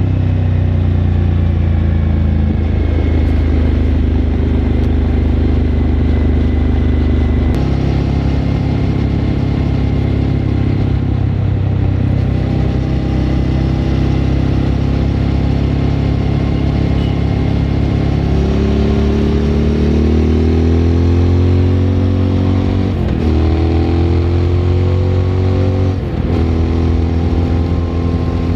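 Suzuki V-Strom 1000's V-twin engine through a Remus aftermarket exhaust, heard onboard while riding: steady running at first, then accelerating from about two-thirds through, with two quick upshifts near the end.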